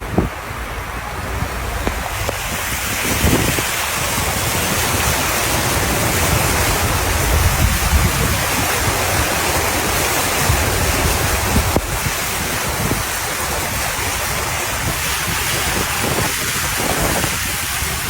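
Deep floodwater rushing and splashing as vehicles wade through it, a loud steady wash with a low rumble and wind buffeting the microphone.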